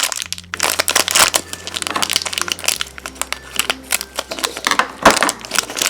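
Plastic wrapper of a Shopkins blind package crinkling in irregular bursts as it is handled and opened by hand.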